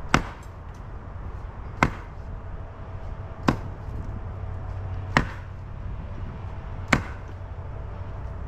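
A long-handled hand tool striking a concrete curb to break it out: five sharp, evenly spaced blows, about one every second and a half.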